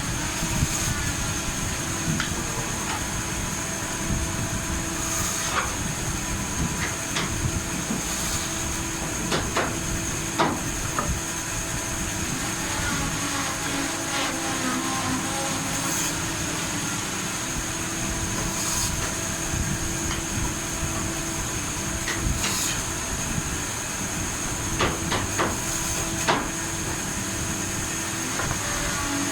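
Steady whine and hum of a running workshop machine, with irregular sharp wooden knocks and taps scattered through it, like hammering on timber.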